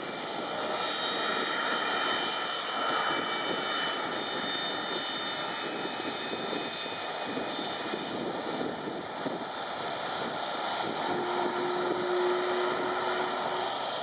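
Boeing 757's twin turbofan engines running as the jet rolls along the runway: a steady jet roar with a high fan whine over it. A lower steady tone joins in for the last few seconds.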